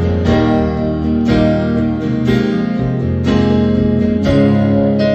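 Acoustic guitar strummed in an instrumental passage between sung lines. Chords ring on, with a strong strum about once a second.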